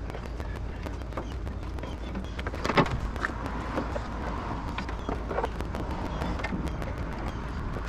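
Steady rain falling, a dense patter of fine ticks over a low hum, with a single knock about three seconds in.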